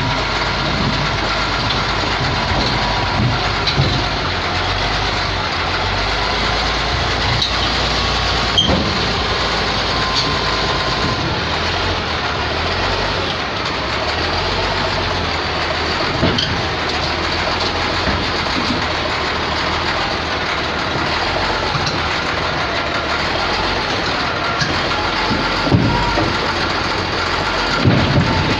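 Caterpillar bulldozer's diesel engine running steadily, with a few sharp knocks scattered through it.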